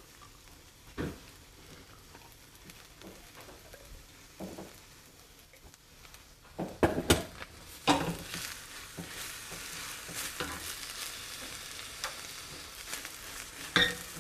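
A frying pan of sautéed red onion and raspberry jelly being stirred, with several knocks and scrapes of a utensil on the pan. A steady sizzle comes up about eight seconds in.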